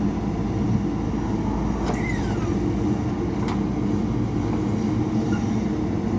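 Diesel engine of a JCB backhoe loader running steadily under work, with a few sharp clicks and a short falling squeak about two seconds in.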